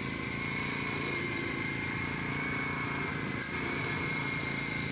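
A small engine running steadily at an even speed, with a constant high whine over it.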